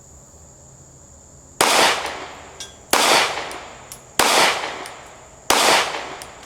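Four 9mm pistol shots from a Glock 43X, slow aimed fire about a second and a quarter apart, each trailing off briefly after the report.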